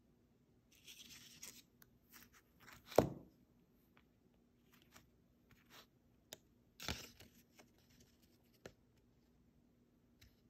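Handling noises with no speech: scattered rustling, a single knock about three seconds in as an iPhone is set down on a tabletop, then paper rustling with another knock near seven seconds as a printed slip is picked up, and a few light clicks after that.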